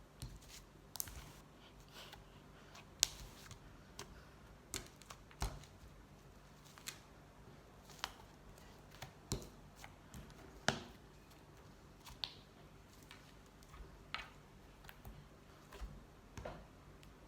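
Homemade fluffy slime being squeezed and poked by hand for ASMR, making sharp little clicks and pops at irregular intervals, roughly one a second.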